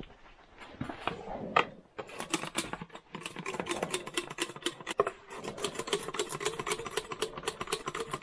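Gasoline glugging as it is poured from a plastic gas can into a small bottle: a fast, fairly even run of gurgles, about five or six a second, starting about two seconds in after a few handling knocks.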